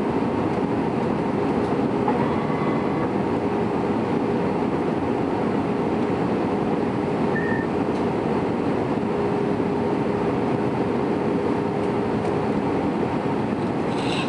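Steady cabin noise of an Airbus A320 descending to land: an even rumble of engines and rushing air with a faint steady hum.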